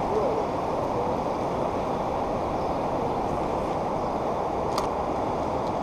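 Steady rushing noise of the flooded river Lomme pouring across the town, with two faint short clicks near the end.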